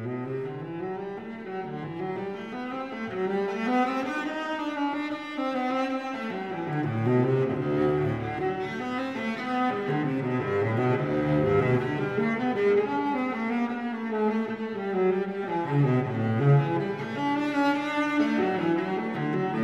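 Background music that cuts in suddenly, a melodic piece with many moving notes.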